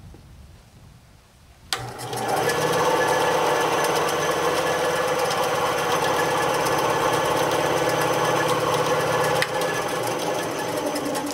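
Ryobi 9-inch benchtop bandsaw (BS904G) switched on for its first run: a click and the motor and blade come up to speed almost at once, then run steadily with no load. A sharp click about nine and a half seconds in, after which it runs a little quieter. The run sounds good, with nothing binding.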